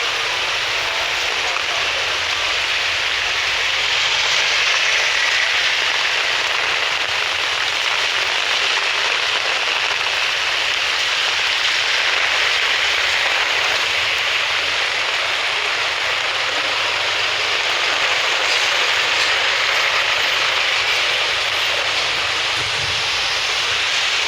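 Steady hiss of rain falling on a city street.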